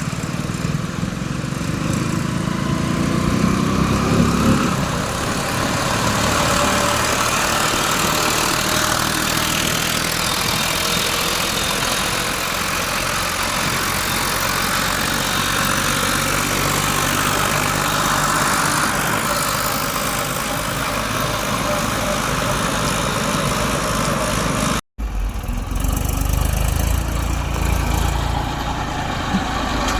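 Heavy diesel machinery running steadily, as a backhoe loader works mud into a tractor trolley. The sound cuts out for a split second about 25 seconds in, then returns with a deeper, heavier rumble.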